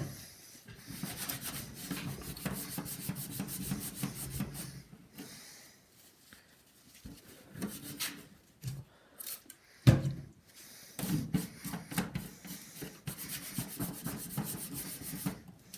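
Paper towel scrubbed hard back and forth against the front panel of a desktop computer case, in quick rasping strokes, two long bouts with a pause between. A single thump about ten seconds in.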